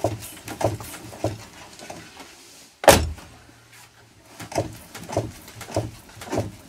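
VAZ-2110 rear strut knocking: a regular series of knocks about every half second to second, with one much louder thump about three seconds in. The knock comes from a rear strut that is leaking oil, felt strongly through the body.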